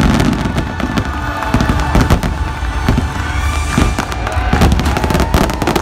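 Aerial fireworks display: shells bursting and crackling in quick succession, with music playing under the bangs.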